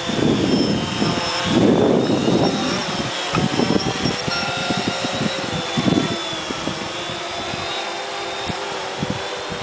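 CX-20 quadcopter's motors and propellers whining steadily as it hovers low, the pitch wavering slightly as the motors correct against the wind. Gusty wind rumbles on the microphone, hardest in the first couple of seconds.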